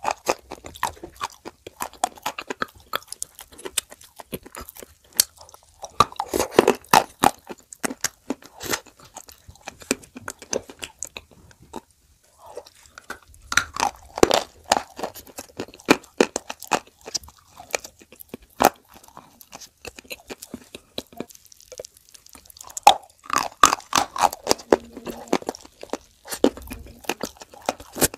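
Pieces of dry Turkestan clay coated in clay paste bitten and chewed close to the microphone: sharp crunches and crackles, loudest in three bursts of biting, with quieter chewing between them.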